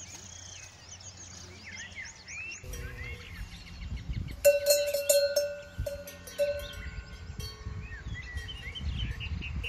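Small birds chirping for the first few seconds. Then a cowbell on a grazing cow clanks and rings in a run of strokes over a low rumble, loudest around the middle.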